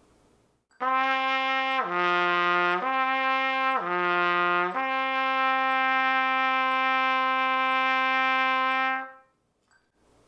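Trumpet playing a lip-slur exercise with valves 1 and 3 down: D down to low G and back twice, all joined on the air without tonguing, then a long held D. The notes change smoothly, and the held D lasts about four seconds.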